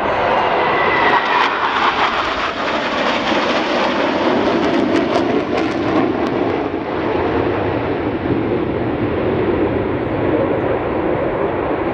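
Jet noise from a formation of eight KAI T-50 Golden Eagle jets, each with a single General Electric F404 turbofan, flying overhead. It is a loud, steady rushing sound that drops lower in pitch about four seconds in as the formation passes, with some crackle in the middle.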